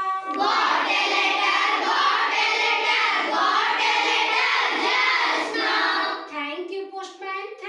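A group of schoolchildren singing a rhyme together in unison, many voices at once. Near the end a single voice takes up the next line alone.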